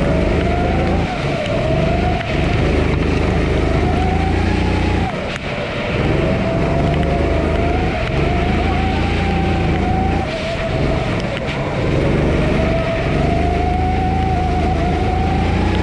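Sodi SR4 kart's Honda GX270 single-cylinder four-stroke engine, heard on board, revving up slowly along the straights. The revs drop sharply about five and ten seconds in as the driver lifts off for corners.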